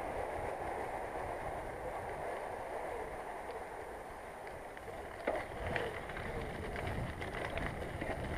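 A bicycle being ridden, its tyres rolling over the path with a steady rushing noise. From about five seconds in come irregular clicks and rattles of the bike over a bumpy surface.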